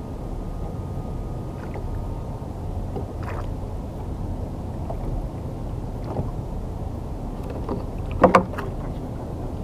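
Steady low wash of water and wind around a fishing kayak, with a few faint clicks. About eight seconds in there is a short, loud double knock.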